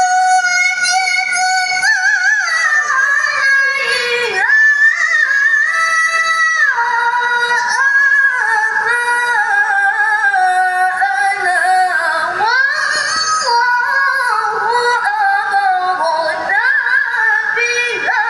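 A female reciter's melodic Quran recitation (tilawah): a long, high-pitched melismatic phrase of held notes decorated with turns and sliding ornaments.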